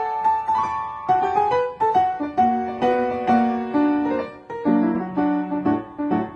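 Piano music: a lively tune of struck notes and chords at a steady pulse.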